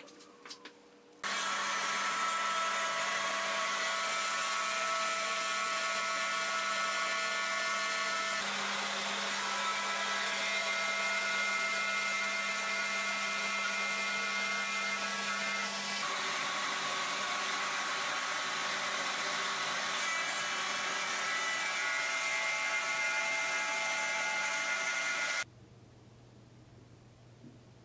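A trim router running steadily as it cuts grooves across an oak board, together with a vacuum drawing off the dust at the cutter. It starts about a second in, changes in tone twice along the way, and cuts off suddenly near the end.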